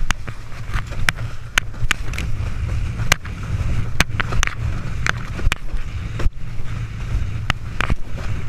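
Windsurf board planing fast over choppy water, heard from a body-mounted camera: heavy wind rumble on the microphone, broken by irregular sharp slaps, about one or two a second, as the board hits the chop.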